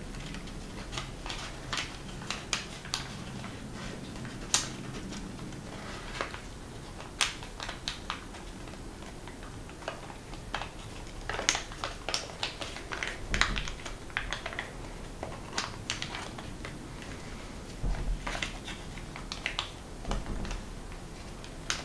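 Folded origami paper crinkling and crackling in the hands: irregular sharp crackles as a folded paper unit is tucked into a pocket and pressed into shape.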